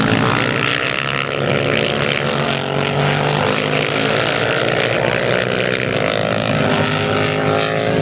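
Race motorcycle engines running hard on the circuit, several at once, their pitch drifting up and down as the bikes rev and pass.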